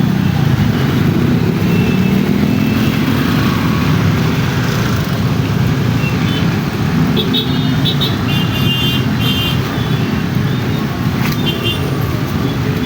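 Road traffic in a jam: vehicle engines running in a steady low rumble, with a few short high-pitched tones about halfway through and again near the end.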